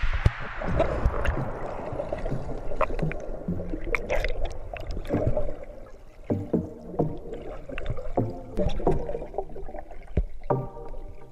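Muffled underwater splashing and bubbling from a swimmer moving through the water, heard through a waterproof camera housing, with irregular knocks and gurgles. Music comes back in near the end.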